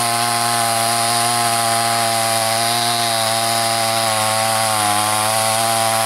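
Soyuz semi-professional two-stroke chainsaw with a 40 cm bar running at high revs while ripping lengthwise down into an upright log section. The engine note holds steady, then sags briefly under load about four to five seconds in before recovering.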